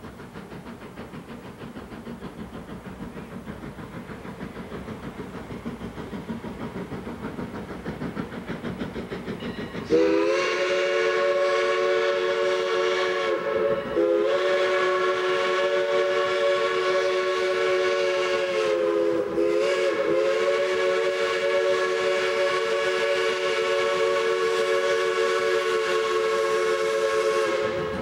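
Steam locomotive running, a rhythmic sound growing steadily louder. About ten seconds in, its chime whistle sounds a loud chord of several notes in three long blasts run nearly together, the last the longest, each dipping slightly in pitch as it ends.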